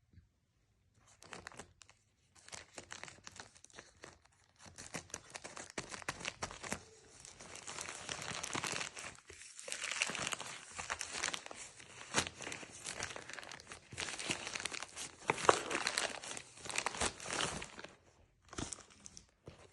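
Packaging being crinkled and torn open by hand as a parcel is unboxed: a long run of dense crackling and ripping, with a short last rustle near the end.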